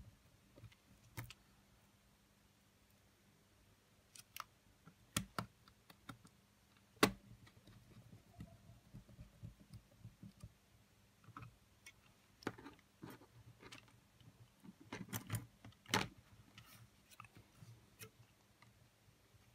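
Scattered small clicks and taps of a precision screwdriver and fingers on the metal chassis of a Sony WM-FX811 cassette Walkman as its small screws are driven back in, with quiet gaps between; the sharpest click comes about seven seconds in and a quick cluster near the end.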